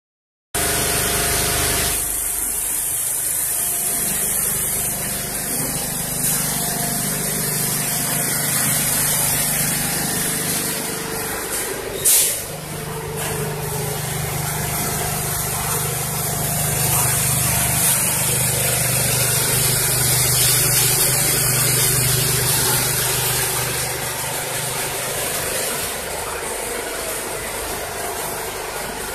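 Multi-needle quilting machine running steadily: a continuous mechanical whir with a steady hum and hiss. A sudden short burst of noise cuts in about twelve seconds in.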